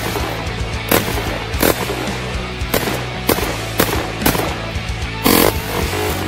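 Semi-automatic bullpup 12-gauge shotgun firing 00 buckshot in quick succession, about seven shots at uneven gaps of half a second to a second. Background music runs underneath.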